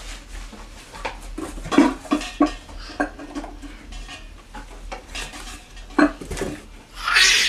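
A toddler rummaging in a closet and handling things: a string of light knocks and clatters, with a burst of rustling near the end.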